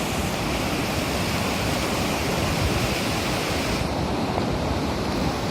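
Rushing water, a steady wash of noise, with wind buffeting the microphone; the high hiss thins out about four seconds in.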